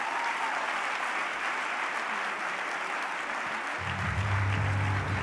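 Audience applauding, a dense steady clapping. Music with a low sustained bass comes in under it near the end.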